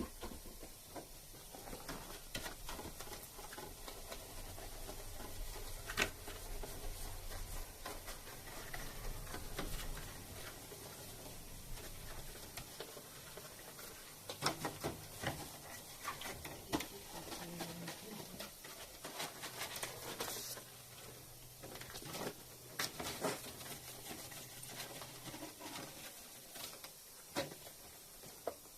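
Scattered clicks, knocks and rustling from hands handling the plastic parts of a room air conditioner as it is opened up for cleaning, with a faint low hum underneath at times.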